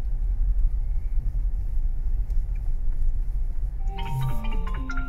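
Steady low rumble of a car driving slowly, heard inside the cabin. About four seconds in, background music with a melody of stepped notes comes in over it.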